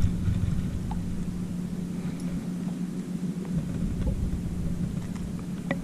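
A steady low hum with a rumbling rush beneath it, with one or two faint ticks.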